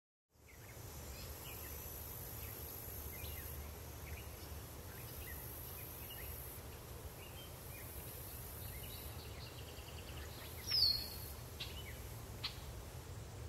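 Woodland ambience: a steady low rumble with scattered short bird chirps, and one louder, falling bird call near the end.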